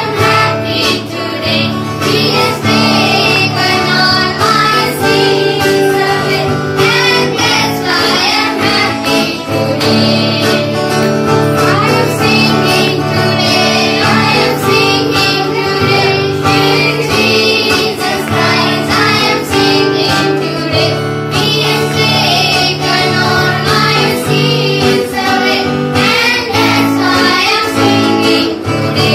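A group of children singing an action song together, accompanied by a strummed acoustic guitar with a steady beat.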